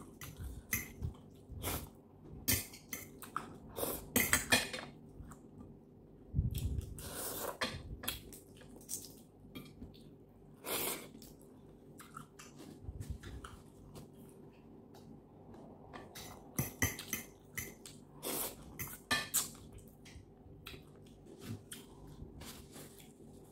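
Metal fork clinking and scraping on a ceramic plate, with close-up chewing and mouth sounds of someone eating noodles, in scattered irregular taps. A faint steady hum sits underneath.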